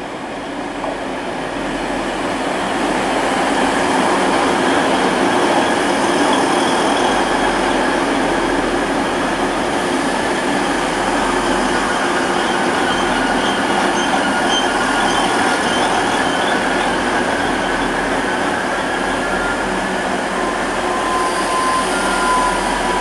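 DB class 612 diesel multiple unit running into the station along the platform. It gets louder over the first few seconds as it nears, then passes close with a steady mix of diesel engine noise and wheels on the rails. A thin squeal comes in near the end.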